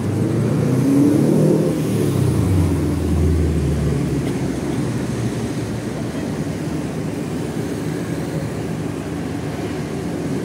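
Bus diesel engine revving, its pitch climbing over the first two seconds, then running steadily with a deep low drone for a couple of seconds before settling to an even run.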